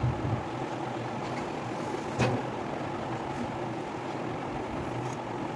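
A steady low background hum, with a single short click or knock about two seconds in.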